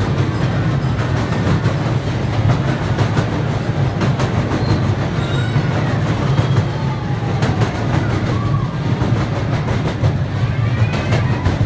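Miniature park train running along its track, heard from an open passenger car: a steady low rumble of wheels on rails with occasional clicks over the rail joints.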